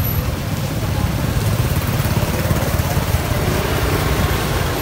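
Motorbike engine running steadily close by, with a constant low, rapidly fluttering rumble and road noise.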